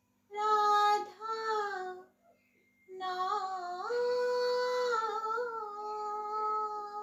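A woman singing a Hindi devotional song unaccompanied, in slow drawn-out notes. A short phrase is followed by a brief pause, then a long phrase of held notes that steps up in pitch about four seconds in and back down about a second later.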